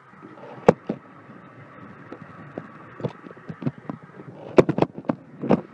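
Sharp knocks and clicks of hands handling a small plastic model piece close to the microphone: one knock about a second in and a quick cluster near the end, over a steady faint hum.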